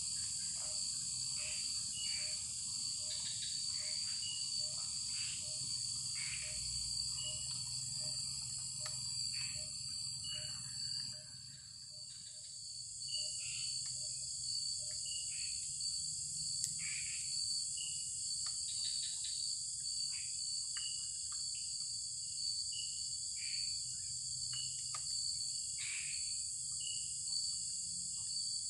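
Chorus of crickets and other insects: a steady shrill high buzz with a thin steady whistle beneath it. A low call pulses about every two-thirds of a second and stops about twelve seconds in, and short chirps come and go throughout.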